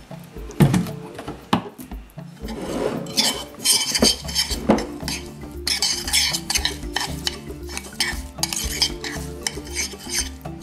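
A metal spoon stirs a thick marinade paste of ground seasonings and vegetable oil in a ceramic bowl, scraping and clinking against the bowl. The strokes are sparse at first and come quick and steady from about four seconds in.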